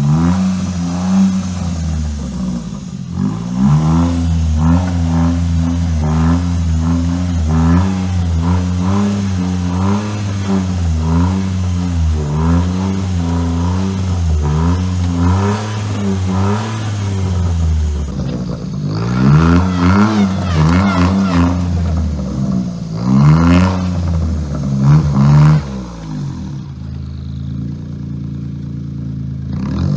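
Suzuki Jimny JB23's small three-cylinder engine running while the car is driven. Its note wavers up and down in an even rhythm about once a second, and swings wider in the second half before going quieter near the end. The wavering is the strange driving noise whose cause is unknown.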